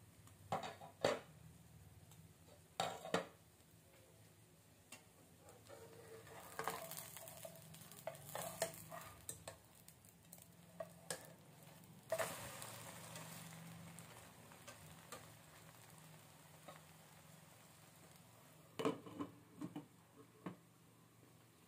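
Grated potato and egg pancake frying in oil in a nonstick pan: a faint sizzle with scattered spatula scrapes and taps. About twelve seconds in, the pancake is flipped and the sizzle flares up, then fades; near the end a glass lid clinks back onto the pan.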